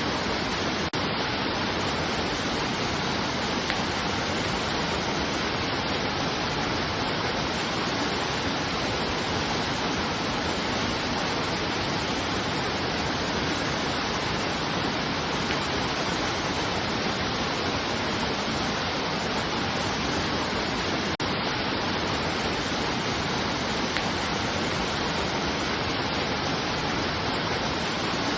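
Steady, unbroken rushing of water, an even roar without rhythm or change, with a momentary dip about 21 seconds in.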